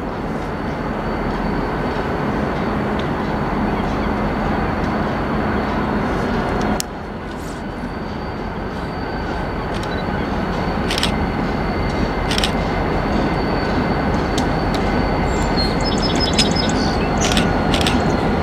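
Diesel freight locomotive approaching, its engine rumble growing gradually louder, with a sudden dip about seven seconds in before it builds again. A few sharp clicks and a brief high squeak come in near the end as the train draws close.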